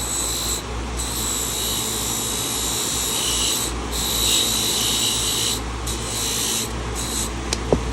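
Grinder running with a high steady whine as a rusty carbon-steel pocket knife is held against the wheel, a rasping grind that comes and goes as the blade is pressed on and lifted off. Two sharp clicks near the end.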